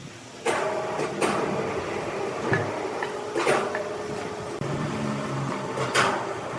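Sawmill machinery running with a steady hum, broken by several sharp clanks and knocks at irregular intervals.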